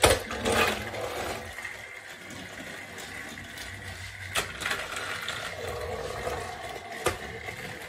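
Motorised TrackMaster Thomas toy engine running along plastic track, a steady small-motor whir with rattling. A loud plastic clack right at the start, and sharp clicks about four and a half and seven seconds in.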